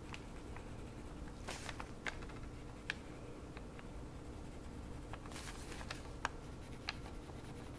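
Faint handling sounds of a paper pattern being traced with a pencil on cotton pants: two brief rustles and scattered light ticks over a faint steady hum.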